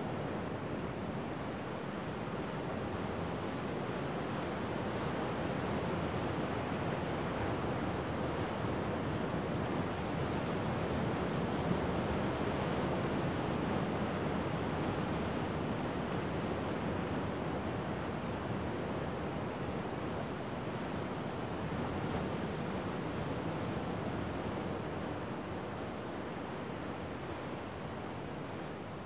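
Rough winter surf of the Sea of Japan breaking over a rocky shore: a continuous crashing wash of waves that swells through the middle and eases near the end.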